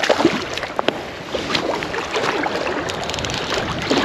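Choppy lake water lapping and splashing against a stony shore in a strong headwind, with wind on the microphone; a hooked brown trout splashes at the surface about the start.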